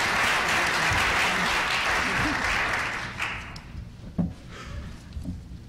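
Audience applauding, dying away about three seconds in, followed by a single knock.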